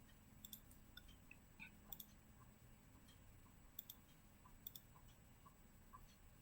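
Near silence with a few faint computer mouse clicks, several of them in quick pairs.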